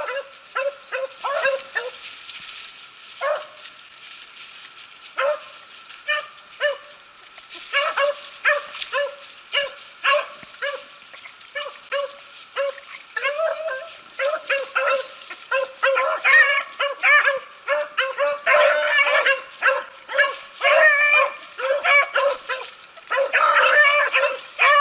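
Pack of beagles baying while running a rabbit: short, repeated barks, scattered at first, then coming steadily from about seven seconds in and thickening into several dogs at once in the second half.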